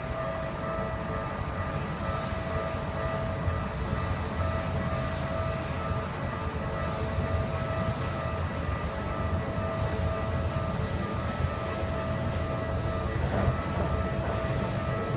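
Japanese railway level-crossing alarm ringing steadily, over the low rumble of a train that grows a little louder near the end.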